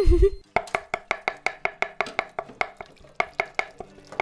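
Animated channel-intro jingle: a brief low thump with a short tone at the start, then a quick, even run of short struck notes, about six a second, that stops near the end.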